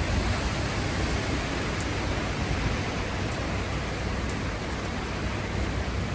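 Hurricane-force wind and driving rain in the back eyewall of Hurricane Milton: a steady, dense rushing noise with a strong low rumble.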